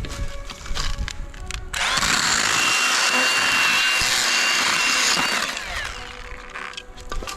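Milwaukee M18 FUEL cordless handheld chainsaw running with a steady high whine for about three and a half seconds, starting about two seconds in, then winding down; light clicks and knocks come before it.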